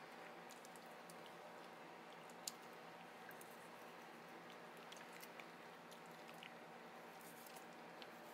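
Faint wet squishing and small clicks of raw seafood flesh being handled and cut with a knife on a cutting board, over a steady low hum; one sharper click about two and a half seconds in.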